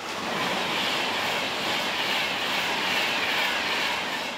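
Passenger train passing at speed: a loud, steady rush of wheel and air noise that starts suddenly, with a higher band that slowly falls in pitch, fading away near the end.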